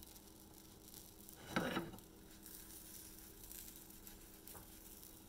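Pancake sizzling faintly in a nonstick frying pan on a gas burner, with one short metallic clank about one and a half seconds in as the pan is handled on the stove's grate.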